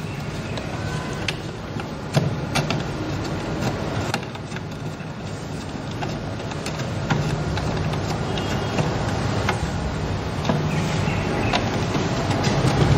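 Scattered clicks and taps from hands and an Allen wrench fastening LED panels into a plastic traffic light housing, over a steady low rumble.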